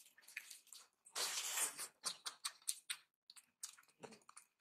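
Wet, sticky squishes and clicks of a bare hand kneading rice with mashed potato and dal on a plate, in short irregular strokes, with one longer, louder squish about a second in.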